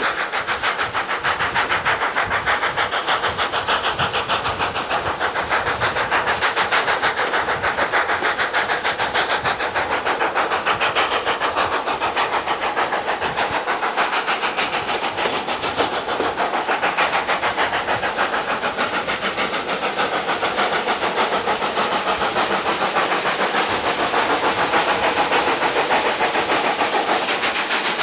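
Ex-South Australian Railways broad-gauge steam locomotives working hard, their exhaust chuffing in rapid, even beats with a hiss of steam throughout.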